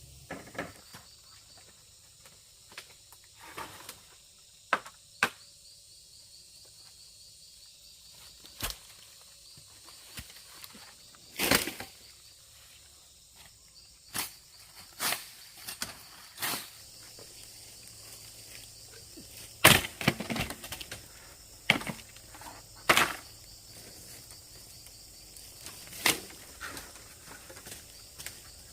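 Wood being worked by hand: irregular sharp wooden knocks and cracks, about fifteen spread unevenly, with louder clusters near the middle and about two-thirds of the way through.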